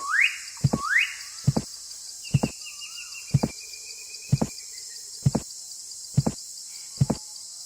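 Dull knocks about once a second, eight in all, over birdsong: two quick rising chirps in the first second and a long whistled note a couple of seconds in, with a steady high hiss behind.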